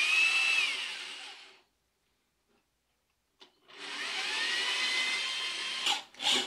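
Cordless drill drilling a hole in the metal back panel of a Korg MS-10 synthesizer. It runs in two bursts: the first winds down and stops about a second and a half in, and the second starts about four seconds in with a whine rising in pitch as the motor spins up. A few knocks come near the end.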